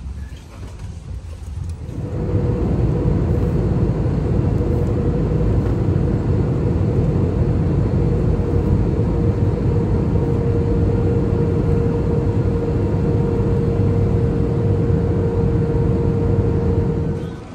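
Steady rumble inside a moving vehicle, with one constant hum over it. It comes up about two seconds in and drops away just at the end.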